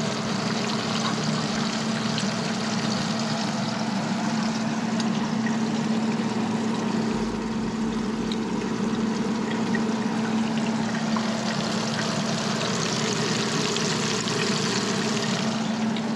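Fish frying in a pan: a steady sizzling hiss with faint crackles, over a constant low hum.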